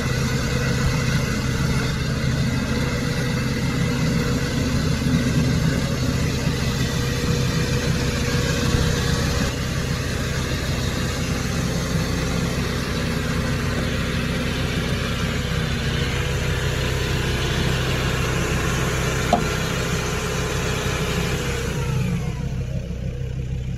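Nissan Patrol GR Y61's engine running steadily with the revs held up while the truck sits stuck in mud, easing off near the end.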